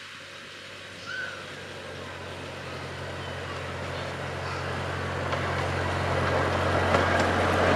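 Miniature park train's locomotive running as it rolls toward the listener: a steady low engine hum that grows steadily louder.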